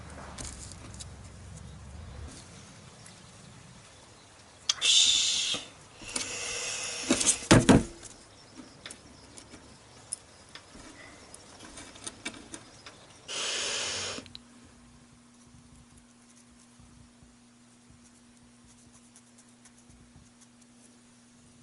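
Short scraping strokes of small wooden model-ship parts being filed or sanded by hand, three brief spells of it, with a couple of sharp knocks about seven and a half seconds in. After that only a faint steady hum.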